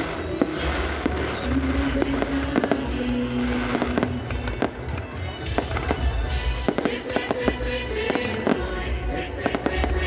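Fireworks going off, with many sharp bangs and crackles in quick succession.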